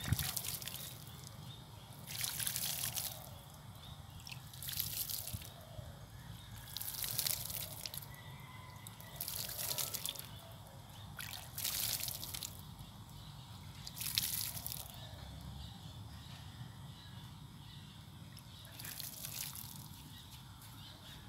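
Water sprinkling from a metal watering can onto the soil of potted plants, in spells of about a second every two to three seconds, with a longer pause near the end.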